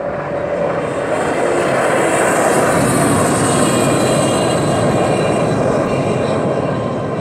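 Race boat's engine running flat out as it passes at speed, throwing a rooster tail of spray. The roar builds over the first couple of seconds, is loudest around the middle and eases a little near the end.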